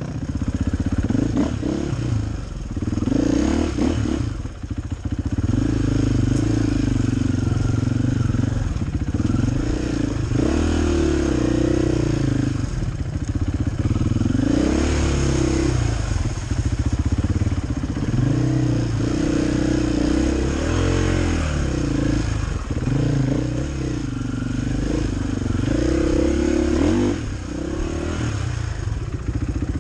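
KTM 500 EXC enduro bike's single-cylinder four-stroke engine, heard from the rider's helmet, revving up and down over and over as the throttle is worked.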